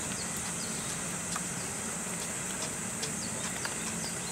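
Steady outdoor ambience: a continuous high-pitched insect drone, with a low hum beneath it and a few faint short chirps and ticks.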